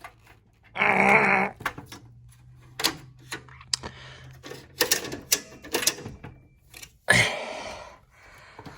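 Clicks, knocks and rattles of hands working on the inside of a desktop workstation, handling parts around its video card. About a second in there is a short vocal groan, and near the end a louder rushing noise.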